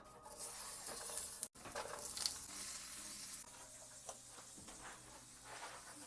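Food sizzling in a hot frying pan, with a few scrapes and knocks of stirring; the sound breaks off for an instant about a second and a half in.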